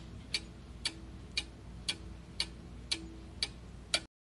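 Clock-ticking sound effect marking a quiz countdown timer: evenly spaced sharp ticks, about two a second, over a faint low hum. It cuts off suddenly near the end.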